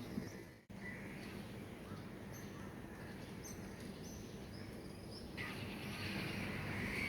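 Small birds chirping in short, scattered calls over steady city background hum and hiss. A rushing noise grows louder about five seconds in.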